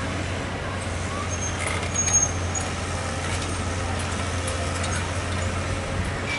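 Diesel engine of a hydraulic excavator running steadily while it digs, a constant low hum, with a brief high squeak about two seconds in.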